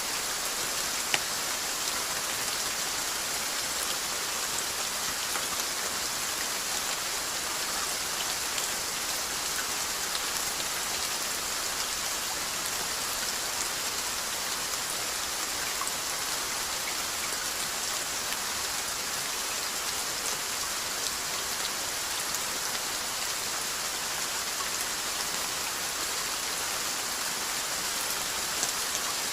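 Steady rainfall: an even hiss of many drops on a surface, with scattered individual drop ticks and one sharper tick about a second in.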